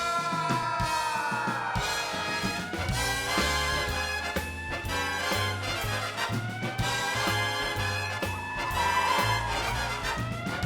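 Big-band swing theme music: a brass melody with sweeping, gliding phrases over a stepping bass line.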